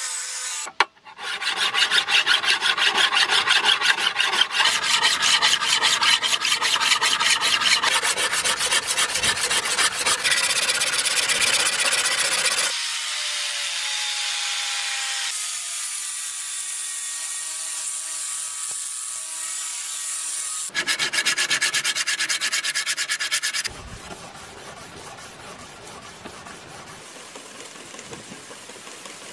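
Angle grinder with an abrasive disc grinding a steel katana blade, a fast rasping sound. Midway the disc's whine falls in pitch, grinding picks up again briefly, and then quieter hand-abrading strokes on the blade follow near the end.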